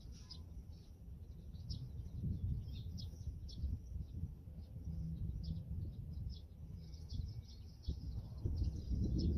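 Small birds chirping again and again over a loud, uneven low rumble that swells near the end.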